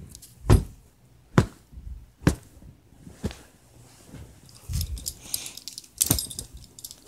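Handling noise from a handheld camera moving over bedding: soft knocks about once a second, then rustling and a louder knock near the end.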